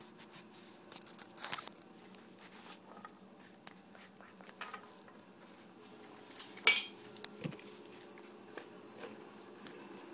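Faint buzzing of Hexbug Nano vibration-motor toy bugs, with scattered small plastic clicks and taps and one sharper click a little past halfway.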